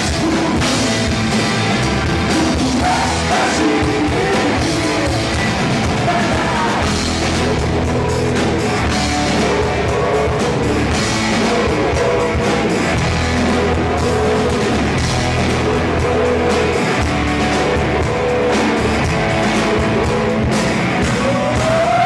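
Live rock band playing loud: drum kit, electric guitars, bass and hand drums, with singing over the top. A rising note slides up near the end.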